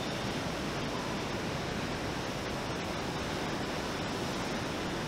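Steady rushing hiss of water spray jets washing bare car body shells in a spray tunnel.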